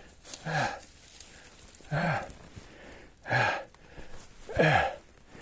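A man grunting hard with effort four times, about a second and a half apart, each grunt falling in pitch: the strain of hauling his own body weight up a 5-metre cliff by rope.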